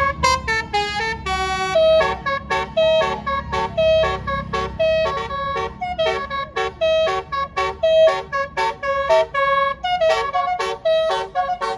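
Bus 'basuri' musical air horn playing a fast telolet melody. It sounds a quick run of short, clipped notes, several a second, with the pitch jumping from note to note.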